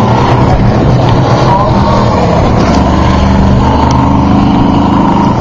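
Off-road race truck engines running loud and close, their pitch mostly steady.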